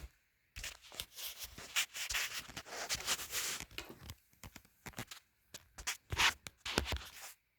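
Irregular rubbing and scratching noises, coming in uneven bursts of varying length.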